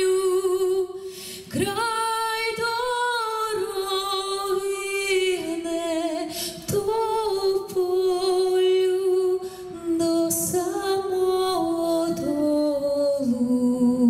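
A woman singing unaccompanied in long, slow phrases with vibrato, with short breaks for breath about a second and a half in, near the middle, and about ten seconds in.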